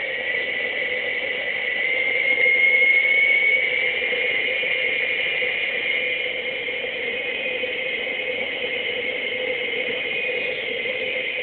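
A small homemade ramjet running on a gas jet: a steady hiss with a whistling tone that rises slightly and gets louder about two to three seconds in, over a lower steady hum.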